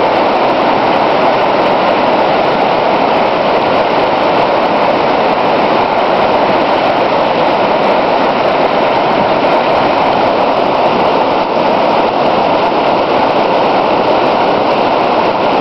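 Whitewater rapids rushing steadily over a rock ledge in a creek: a loud, even roar of water.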